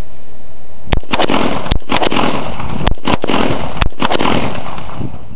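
A DPMS AR-15 rifle in .223/5.56 fired semi-automatically: about four sharp shots roughly a second apart, over a steady noisy hiss between them.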